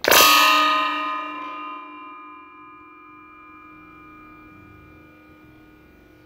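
A pellet strike on a water bottle and the sheet-metal target stand beneath it, a sharp smack followed by the stand ringing like a bell, several steady tones fading out over about five seconds.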